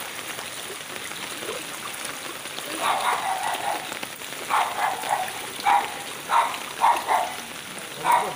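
Steady heavy rain falling on floodwater. From about three seconds in, a run of short, loud sounds comes roughly every half second.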